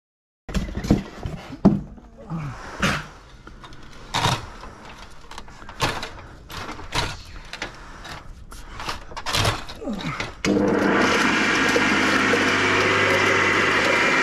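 A homemade guillotine blade chopping fish for berley makes a run of sharp, irregular chops and knocks. About ten seconds in, an electric garden shredder switches on suddenly and runs steadily with a low hum.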